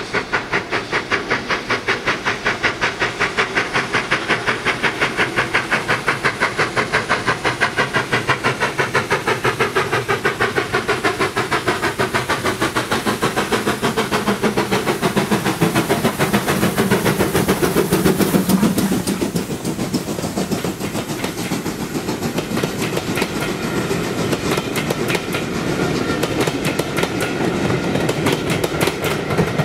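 GWR Modified Hall class 4-6-0 two-cylinder steam locomotive working hard, a rapid, even beat of exhaust chuffs that grows louder as it comes up and passes about eighteen seconds in. After it, its coaches roll by with a rumble and the clickety-clack of wheels over rail joints.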